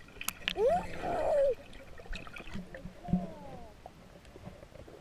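Water sounds heard from underwater: air bubbles gurgling, with short warbling tones that rise and fall about a second in and again around three seconds, and a few sharp clicks.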